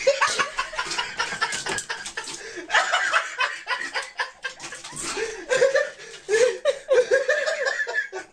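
Laughter in repeated snickering, chuckling bursts.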